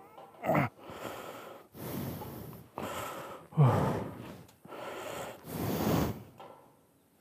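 A man breathing hard and out of breath, about one heavy breath a second, a couple of them voiced as gasps.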